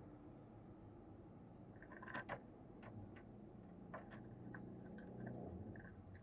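Near silence: a faint steady low hum, with a couple of soft clicks about two seconds in, another near four seconds, and a few faint short chirps scattered through.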